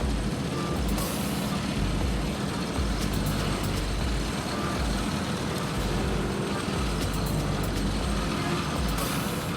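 Heavy diesel road-construction machinery running with a steady low engine drone, with two short hisses, about a second in and near the end.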